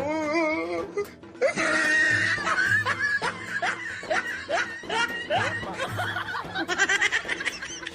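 Laughter in short bursts of snickering and chuckling over background music with a steady bass beat. A brief wavering pitched sound comes in the first second, before the laughter starts.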